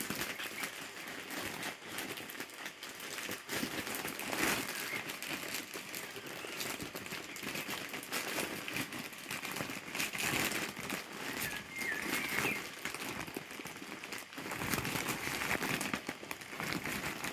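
Plastic packaging crinkling and rustling as packets are handled and pulled out of a delivery bag, in uneven bursts of crackle.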